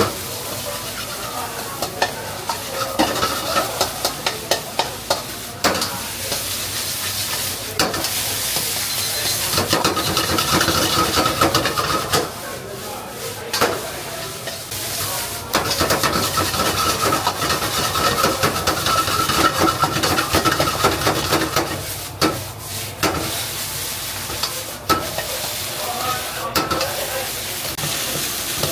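Fried rice stir-frying in a wok over a gas burner: a steady sizzle with frequent sharp clanks and scrapes of the spatula and ladle against the wok, coming in quick runs a few seconds in and again near the end.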